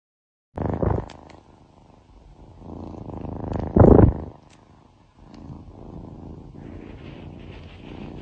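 Domestic cat purring right against the microphone, a low steady rumble. Two short loud bumps break in, one about a second in and a louder one around four seconds in.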